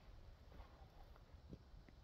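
Near silence: faint background hum with a few faint ticks.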